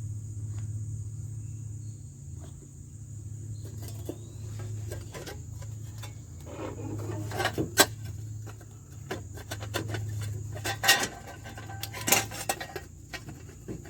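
Metal clinks and knocks as a new front wheel hub bearing assembly is fitted into place on the steering knuckle, growing busier after a few seconds with a few sharp clanks, over a steady low hum.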